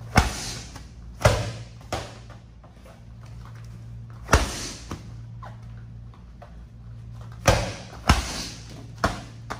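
Medicine balls thrown hard in a series of explosive power throws, each landing with a loud slam. About eight slams come at irregular intervals, several with a smaller knock just after, and each rings briefly in the room.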